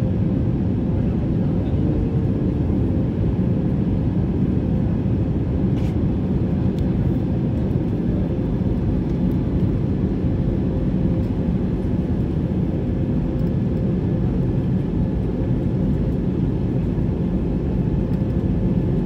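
Steady cabin noise of an Airbus A320-family jet airliner in flight: a loud, even rumble of engines and rushing air with a faint steady hum on top, as heard from a window seat over the wing during the climb after takeoff.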